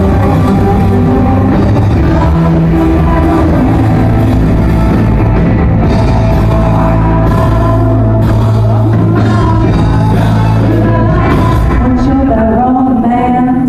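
Live rock band playing loud through PA speakers, with electric guitars, keyboard, a drum kit and a singer.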